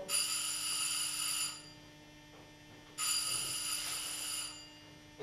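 Telephone ringing: two high-pitched rings, each about a second and a half long and about three seconds apart.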